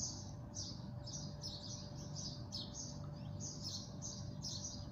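A small bird chirping over and over, about two to three short high chirps a second, over a faint steady hum.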